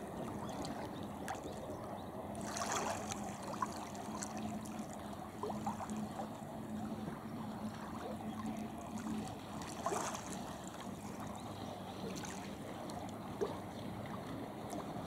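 Outdoor wind and water noise, with a faint steady low hum through roughly the first nine seconds and a couple of brief louder rushes.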